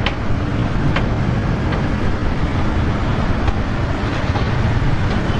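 Heavy diesel earthmoving machinery running steadily, a constant low engine rumble, with a few short sharp clanks in the first two seconds.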